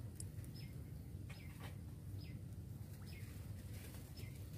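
A bird repeating a short call that slides downward in pitch, about five times at roughly one-second intervals, over a steady low rumble.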